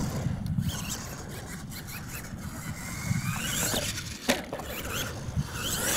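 Radio-controlled monster truck driving and jumping on a dirt course, its motor whine rising and falling as the throttle is worked, with a sharp knock a little after four seconds in as it comes down from a jump.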